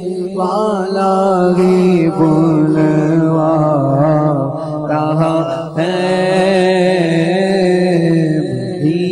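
Male voice reciting a naat into a microphone, singing long wavering melodic lines over a steady held drone.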